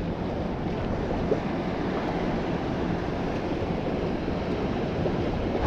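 Steady wind and surf washing at the jetty, an even rushing noise with no distinct events.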